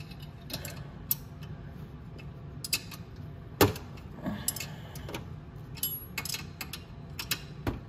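A hand wrench clicking and clinking on a motorcycle exhaust bolt as it is tightened: irregular sharp metal clicks, one louder knock about three and a half seconds in, over a low steady hum.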